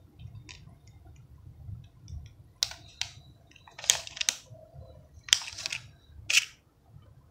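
Fingers handling and flicking a three-arm plastic ball-bearing fidget spinner: about six sharp plastic clicks, each with a short scraping rustle, over a faint low rumble. By the end the spinner has been stopped in the hand.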